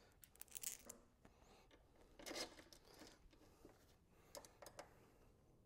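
Faint scattered clicks and scrapes of steel bolts with countersink washers being slid into the cargo plate's mounting holes and started by hand, with a brief scrape about two seconds in.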